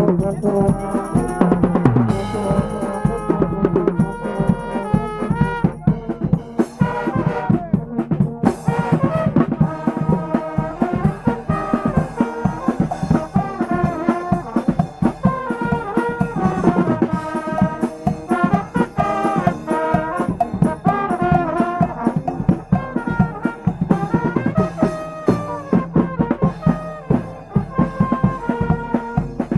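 Dutch dweilorkest, a street brass band, playing a tune live: trombones and trumpets carry the melody over a steady drum beat.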